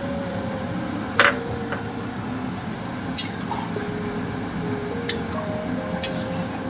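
A few sharp clinks of a metal utensil against a cooking pan, about four spread over several seconds, over a steady background hum.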